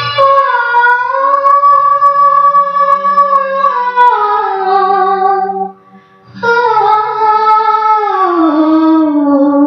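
Music: a slow melodic line of long held, wavering notes over a low sustained accompaniment, in two falling phrases with a brief break a little past the middle.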